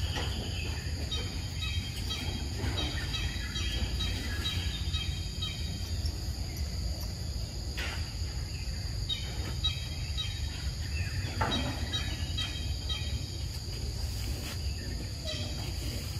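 Outdoor forest ambience: a steady high insect drone and runs of short repeated bird chirps over a constant low rumble, with a couple of soft knocks.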